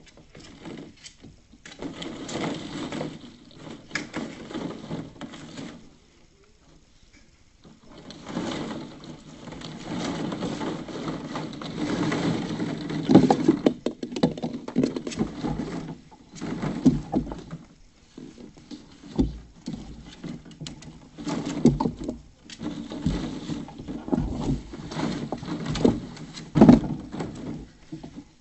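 Plastic balls in a ball pit clattering and rustling as a puppy climbs and digs through them, in bursts with short pauses, with a few louder knocks against the plastic pool.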